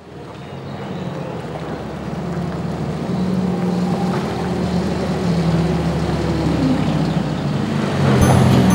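Diesel engine of a telescopic handler running as the loader drives with its bucket, fading in and growing louder over the first few seconds. A louder clatter comes near the end as the bucket is worked over the feed.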